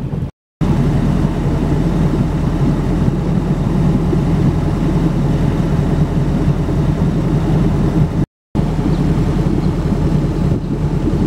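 Motorboat engine running steadily while under way, a low drone. It cuts out to silence for a moment twice, just after the start and about eight seconds in.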